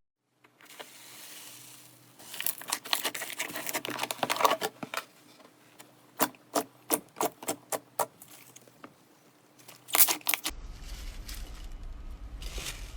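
Slime being handled: crackling and a run of sharp clicking pops, about four a second, then a louder crackle, after which the sound changes to a steadier rustle.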